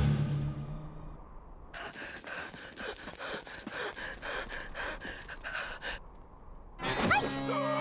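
Cartoon dog panting quickly and anxiously, about four short breaths a second, after a loud sound fades away in the first second. Near the end there is a short rising whimper, and music comes in.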